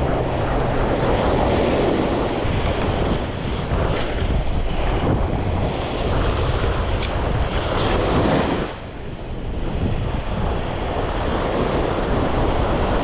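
Small ocean surf breaking and washing up the sand, with wind buffeting the microphone.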